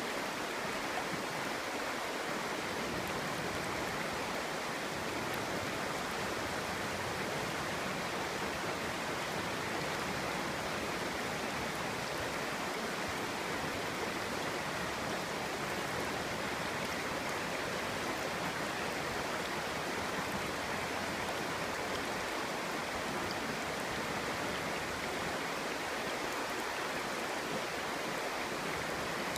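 Clear stream water flowing and babbling over rocks, a steady even rush.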